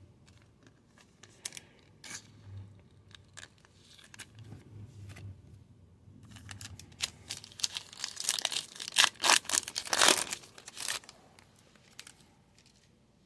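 A Topps Star Wars Chrome foil pack wrapper being torn open and crinkled, a dense burst of crackling from about seven to eleven seconds in. Before it come scattered light clicks and rustles of cards and packs being handled.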